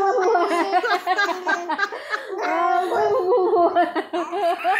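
Baby laughing and babbling at play, a run of quick high-pitched vocal sounds.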